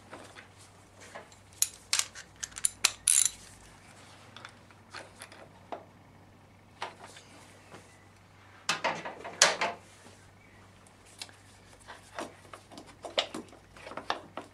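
Metallic clicks and clinks of a socket wrench and tools being handled on a motorcycle's rear brake caliper. They come in short clusters, about two to three seconds in and again, louder, about nine seconds in, with a few single clicks after.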